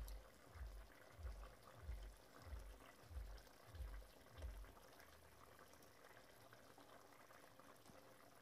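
Near silence: faint bubbling of chicken curry simmering in an open pot, under a soft low thud that repeats about every two-thirds of a second and stops about four and a half seconds in.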